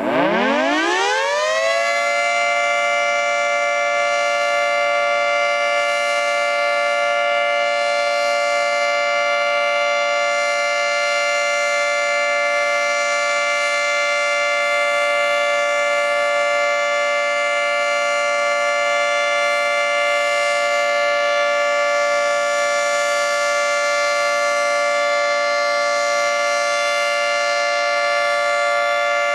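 Federal Signal 2T22 dual-tone outdoor warning siren winding up from a standstill, its pitch rising over about two seconds, then holding a loud, steady two-tone chord. This is the steady alert signal of a tornado siren test.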